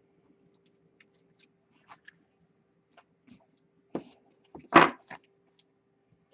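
Trading-card boxes and packs handled on a table: a few light taps, a knock about four seconds in, then a short loud rustle and a smaller one just after, as the finished box is set aside and the second box is taken up.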